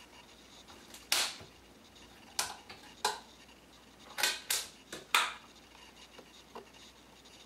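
Snap-on lid being prised off a plastic food container: a series of sharp plastic snaps and clicks, about seven in a few seconds, then a couple of fainter ticks near the end.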